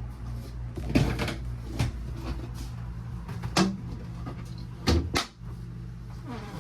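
Cabinet doors in a travel trailer's bathroom being opened and shut: about five knocks and clacks, the loudest about a second in and near five seconds in, over a steady low hum.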